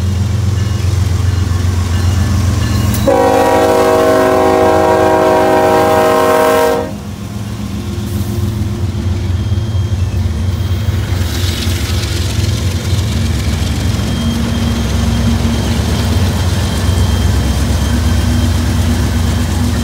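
Union Pacific diesel locomotives rumbling steadily as they pass close by. About three seconds in, the train horn sounds one long blast of several chime tones, lasting about four seconds.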